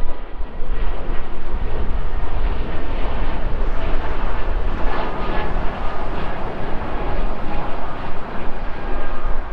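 Jet engine noise of a departing Airbus A220-300 climbing after takeoff, a steady rumble from its Pratt & Whitney PW1500G geared turbofans at takeoff power.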